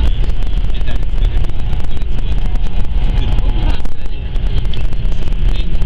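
Steady low rumble inside the cabin of a high-speed bullet train running at speed, with a wash of wind and track noise and no distinct knocks or rhythm.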